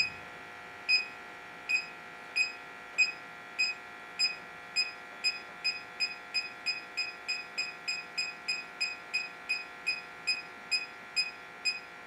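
Bacharach Informant electronic combustible gas leak detector ticking with short, high beeps as its probe is swept over furnace gas piping. The beeps start about a second in, slow at first, and come steadily faster, to about three a second near the end.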